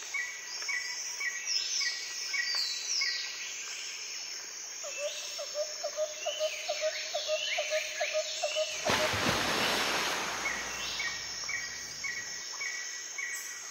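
Birds and insects calling: a steady run of short repeated chirps, falling whistled notes, and a quick lower chirping in the middle. About nine seconds in, a loud rushing noise swells for about a second.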